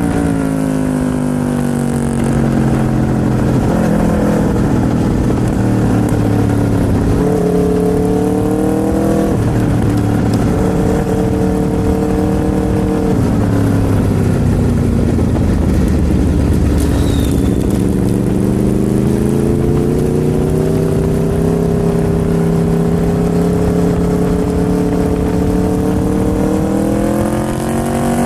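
Aprilia RSV4's V4 engine under way on the road. The revs drop near the start, hold and step between steady pitches through the middle, then climb slowly and steadily over the last ten seconds.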